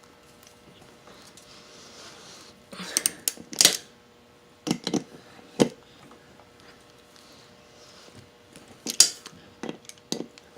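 Short sharp clicks and clattering knocks in three small clusters, about three seconds in, around five seconds, and near the end, over a faint steady hum: handling noise.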